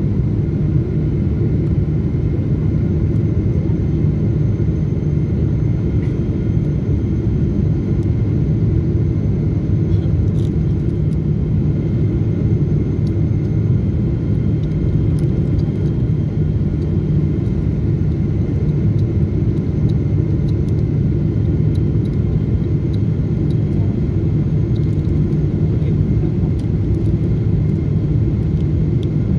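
Jet airliner cabin noise on the landing approach, heard from a window seat beside the engine: a steady deep rumble of engine and airflow with faint steady whining tones above it.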